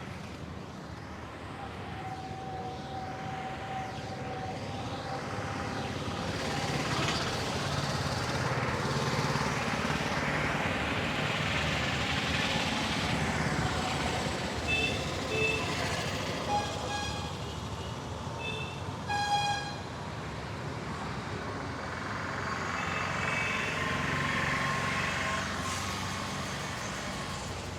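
Road traffic passing in swells, with several short vehicle horn toots midway; the loudest toot comes about nineteen seconds in.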